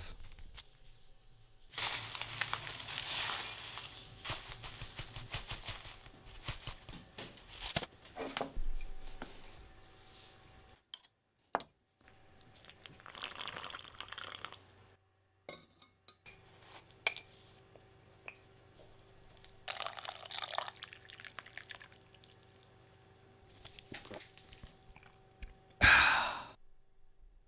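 Yerba mate being prepared: the paper bag of dried yerba rustles and crackles as it is handled, then a gooseneck kettle pours water into a ceramic mate gourd about halfway through. Scattered clinks and taps run between these sounds, and a short loud rush of noise comes near the end.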